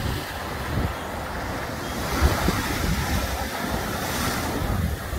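Ocean surf breaking and washing around pier pilings, with wind gusting on the microphone. A wave crashes and splashes against a piling in the second half.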